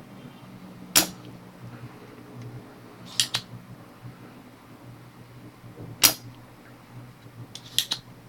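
Sharp snapping clicks of a spring-loaded desoldering pump (solder sucker) being cocked and fired, four times with two of them coming as quick double clicks, as molten solder is sucked out of the DC jack's solder holes. A faint steady low hum sits underneath.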